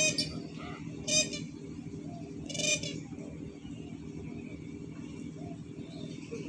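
Sarus cranes giving three short, loud, pulsing calls about a second apart, over a steady low hum.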